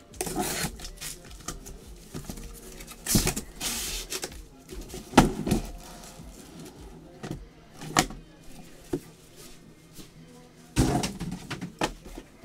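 Cardboard case and sealed trading-card boxes being handled and set down on a table: scattered knocks, scrapes and rustles, the sharpest knock about five seconds in.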